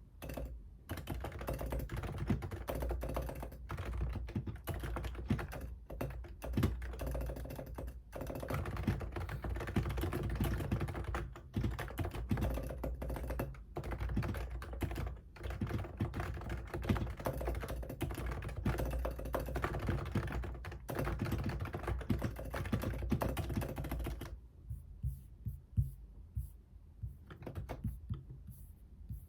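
Rapid, continuous typing on a computer keyboard, the keystrokes clattering in quick runs with short pauses, thinning out to scattered single key presses for the last few seconds.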